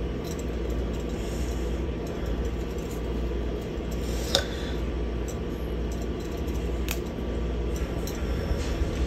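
A steady low hum, with faint rustling and a couple of light clicks as fresh coriander leaves are torn by hand and dropped onto a curry in a ceramic bowl.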